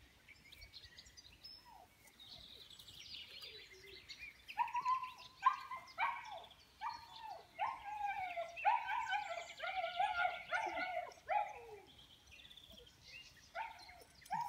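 German Shepherd puppies whining and yipping in a quick run of short, falling calls during rope play, starting about four and a half seconds in and easing off after eleven seconds, with a few more near the end.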